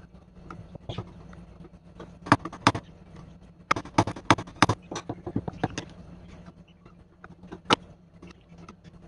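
Flathead screwdriver turning a screw in the wooden handle of an antique paint scraper held in a vise: irregular sharp metal clicks and taps as the blade catches and slips in the screw slot, in clusters, with one loudest click near the end.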